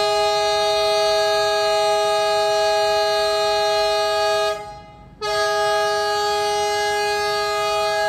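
Horn of an Indian Railways ALCO diesel locomotive sounding a steady chord of several notes: one long blast that breaks off about four and a half seconds in, then a second long blast half a second later, as the train pulls out of a station halt.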